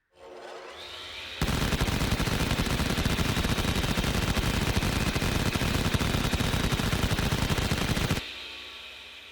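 Large machine gun sound effect: a rising whine for about a second, then a long, unbroken burst of very rapid fire lasting about seven seconds that stops abruptly near the end and fades out.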